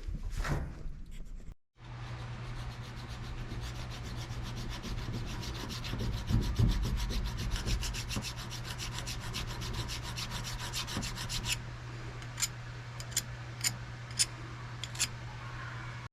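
Rapid, even rasping strokes on metal, like filing or sanding a part by hand, over a steady low hum. About two thirds of the way in they stop, and a few single strokes follow.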